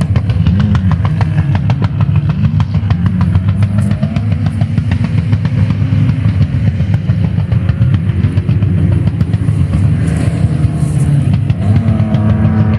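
Motor vehicle driving over a dirt track: a loud, steady engine rumble that rises and falls slightly in pitch, with rapid clicking and rattling throughout.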